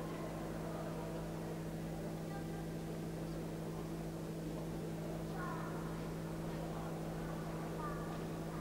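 Faint, indistinct voices over a steady low electrical hum and hiss.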